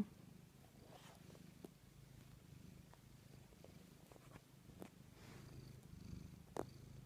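Cat purring softly and steadily, with a few faint clicks over it.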